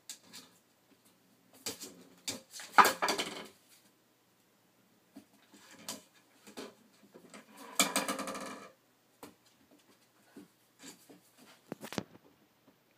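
A puppy playing with brown paper and a cardboard mailing tube: uneven bursts of rustling and scuffling, louder about three seconds in and again around eight, with a few sharp knocks near the end.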